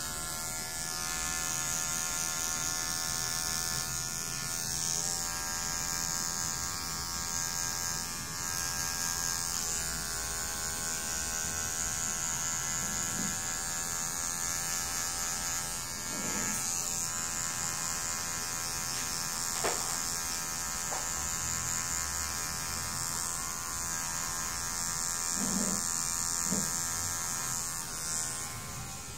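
Cordless electric hair clipper running steadily while cutting a man's hair, a continuous buzz that shifts slightly in pitch a few times. It is switched on right at the start and cuts off near the end.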